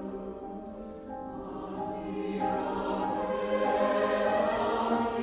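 Choral music: a choir singing long held chords, growing louder from about a second in.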